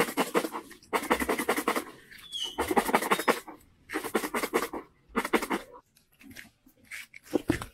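Crunchy potato chips and corn puffs rattling inside a lidded plastic bowl shaken by hand, in about five bursts, with fainter rustling near the end.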